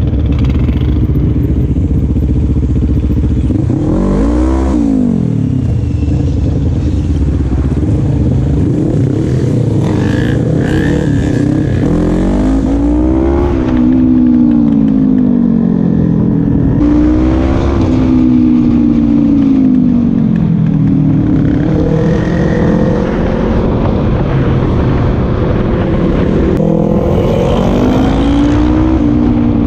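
Quad bike (ATV) engine running under way, its pitch climbing and dropping several times as it accelerates and eases off.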